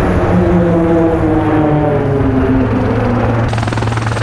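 A formation of Roulettes single-engine turboprop aircraft flying over, their engine and propeller drone falling steadily in pitch as they pass. Near the end the sound changes abruptly to a steady hiss.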